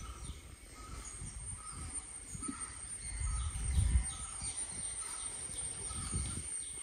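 Birds calling outdoors: one short note repeats about every three-quarters of a second among quick falling chirps, over a steady high-pitched whine. Under them runs an uneven low rumble of water being stirred as a man wades through a weed-choked channel, loudest about four seconds in.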